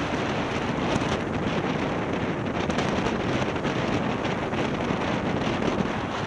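Wind buffeting the microphone of a camera on a moving vehicle, a steady rushing noise over the vehicle's road and traffic noise.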